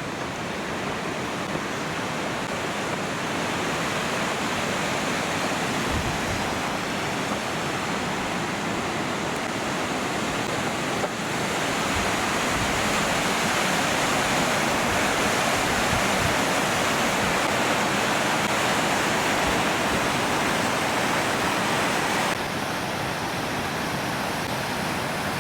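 Kings Creek Falls, a mountain waterfall, rushing steadily. The sound grows a little louder over the first half and drops slightly near the end.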